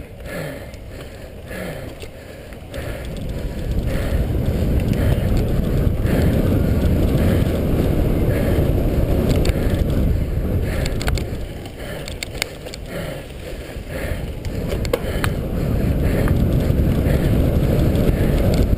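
A cyclocross bike rolling fast over dirt, leaves and grass: low tyre rumble and wind buffeting on the microphone, with scattered rattles and clicks from the bike over bumps. It grows louder a few seconds in as speed builds, dips briefly past the middle, then rises again near the end on the grass straight.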